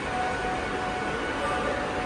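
Railway station platform ambience: a steady wash of noise, with a steady pitched tone held over it.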